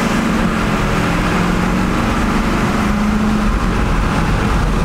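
Chevrolet Silverado diesel pickup's 6.6 L Duramax V8 pulling hard under full throttle, heard inside the cab. It climbs in pitch, then drops about three and a half seconds in, as at an upshift. The engine is stock and sluggish: "a dog".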